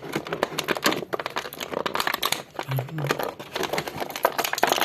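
Crinkling and crackling of a clear plastic packaging tray as an action figure is worked out of it, with the figure stuck in the tray.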